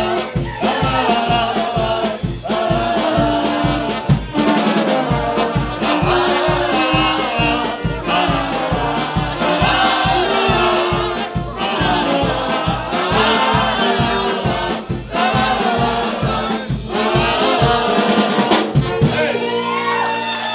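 Brass band music, with trumpet and trombone playing a melody over a steady pulsing bass beat.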